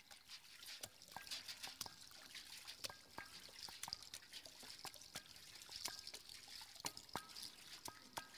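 Water dripping and trickling into a metal washtub: faint, irregular plinking drops over a soft trickle.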